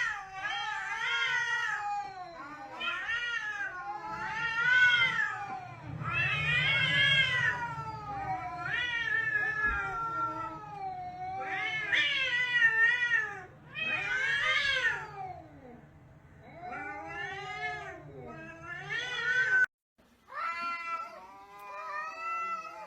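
Domestic cats caterwauling: one drawn-out yowl after another, each wavering up and down in pitch, the threat yowling of a cat fight standoff. The yowls break off briefly near the end, then resume.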